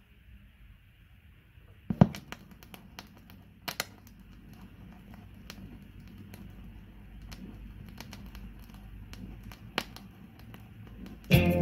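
Turntable stylus dropping onto a vinyl record with a sharp click about two seconds in, followed by scattered crackles and pops from the old record's lead-in groove. Music with bass and guitar starts loudly just before the end.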